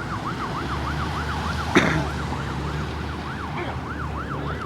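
Emergency vehicle siren in a fast yelp, rapidly sweeping up and down about four to five times a second, over a low steady vehicle hum. A single sharp click cuts in about two seconds in.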